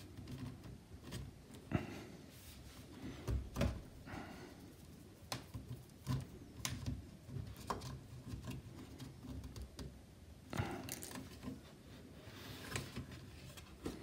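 Faint, scattered clicks and short scrapes of the plastic bottom cover of an HP 14 laptop being pried loose along its edge by fingers and a guitar pick, with a few soft knocks.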